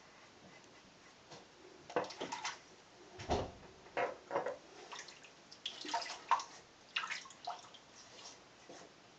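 Water splashing in a bathroom sink, with a run of irregular clacks and knocks, as a safety razor is rinsed between shaving passes. It starts about two seconds in; the loudest sound is a dull thump a little over three seconds in.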